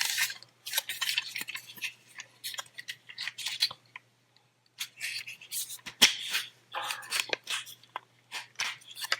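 Hard plastic parts of a Transformers action figure clicking and scraping as they are handled and folded during its transformation into shuttle mode, in short irregular strokes with a pause about four seconds in and a louder click about six seconds in.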